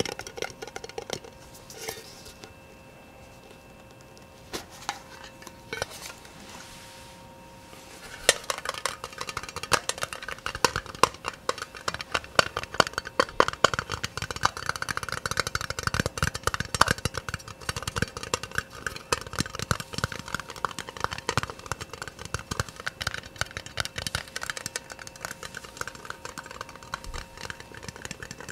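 Fast ASMR tapping on hard objects: a few scattered taps at first, then from about eight seconds in a dense, rapid flurry of clicky taps.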